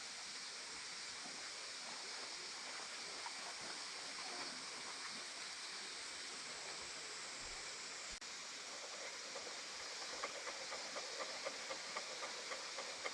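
A steady hiss, joined from about ten seconds in by faint irregular crackles: frozen fried rice sizzling in a hot sandwich maker over a small camp stove.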